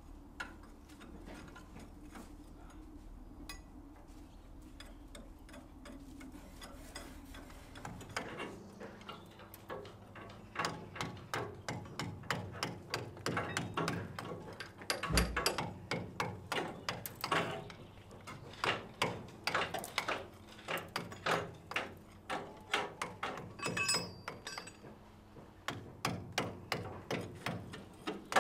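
Rhythmic strokes of a hand tool scraping rust and scale off a steam locomotive's steel frame, about two a second, starting about eight seconds in, with one heavier knock midway. Before the strokes there is only a faint low hum and a few ticks.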